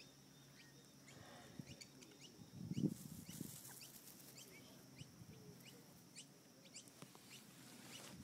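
Faint outdoor bird chirps, many short high notes falling in pitch, over a steady high insect tone. About three seconds in comes a brief, louder, low rustling burst.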